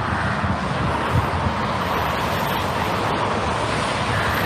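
Road traffic: a motor vehicle going past, a steady rush of engine and tyre noise.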